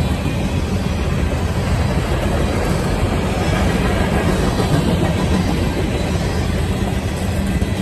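Freight train of covered hoppers and tank cars rolling past: a loud, steady rumble of steel wheels on the rails.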